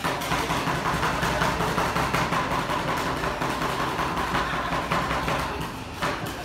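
Two metal spatulas rapidly chopping and scraping ice cream mix on a steel cold plate, a fast, continuous clatter, over a steady low hum.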